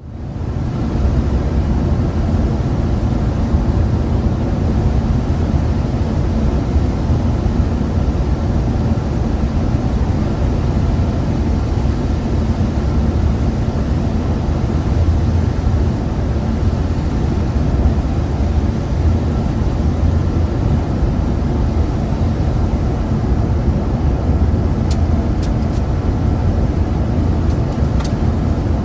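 Steady engine hum and road rumble heard from inside a moving bus, with a few faint ticks near the end.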